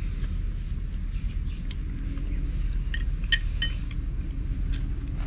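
Dishes and eating utensils clinking during a meal: a few short, sharp clinks, clustered around the middle, over a steady low rumble.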